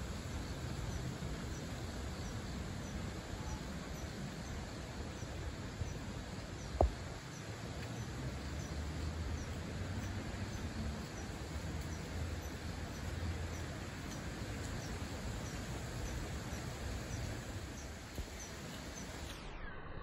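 Steady outdoor background noise with faint high chirps repeating evenly throughout, and a single sharp click about seven seconds in.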